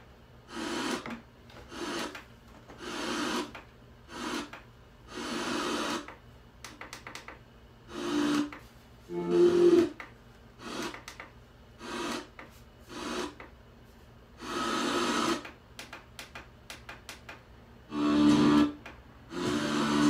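Boombox FM radio being tuned across the dial: short bursts of static hiss and brief snatches of station audio, broken by quiet gaps, about a dozen in all.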